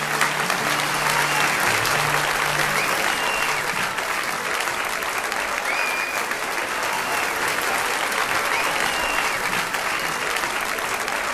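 Audience applauding at the end of a live song, with a few short whistles, while the band's last notes fade out in the first couple of seconds.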